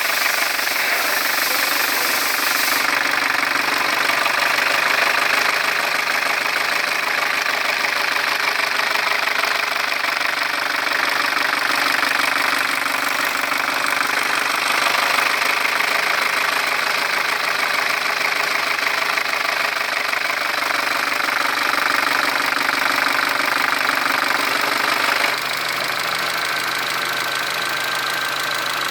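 Audi 1.8 TFSI EA888 gen3 (CJE) four-cylinder turbo petrol engine running steadily with an extraneous noise under diagnosis. The sound drops in loudness about 25 seconds in.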